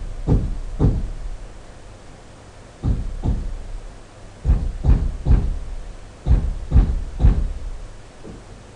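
About ten dull knocks, each short with a brief low smear after it, coming in uneven groups of two or three about half a second apart. The last one is faint.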